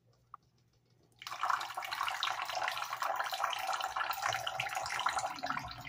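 Sink tap turned on about a second in, water running steadily into a bathroom sink, easing off near the end.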